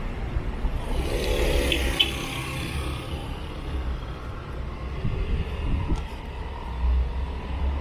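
Steady low rumble of city road traffic, with a brief pitched sound about a second in.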